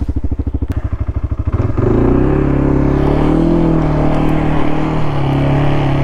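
Kawasaki Brute Force 300 ATV's single-cylinder four-stroke engine idling with an even, fast pulse. About two seconds in, the throttle opens and the pitch rises, and the engine then runs steadily under way.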